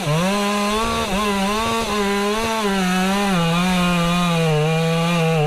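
Chainsaw held at high revs while cutting into the trunk of a big hollow tree, its engine note wavering slightly as the load on the chain changes.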